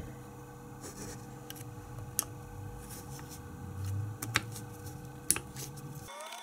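Screwdriver working the small mounting screws of a throttle position sensor on a throttle body: scattered small metallic clicks and scrapes of the blade in the screw heads, a handful over several seconds, over a steady low hum.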